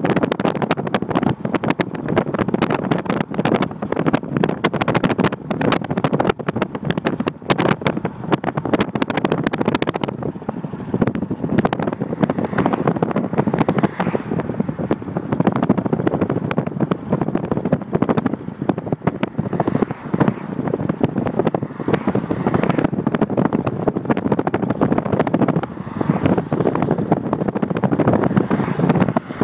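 Steady road and wind noise of a moving car, with wind buffeting the microphone in rough gusts, heaviest in the first third.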